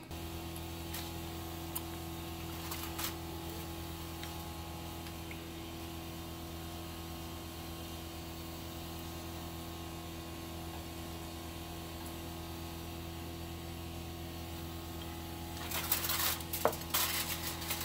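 Steady machine hum with a low drone and a few steady tones over it, like a motor or fan running. Scratchy handling noise with sharp clicks comes in near the end.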